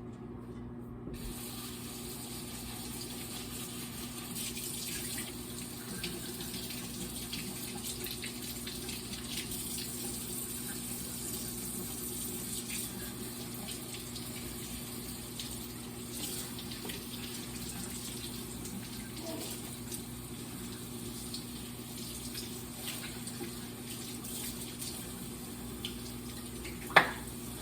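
Kitchen sink tap running as food containers are rinsed under it, with small knocks of the containers, and a sharp clack near the end. A steady low hum sits underneath.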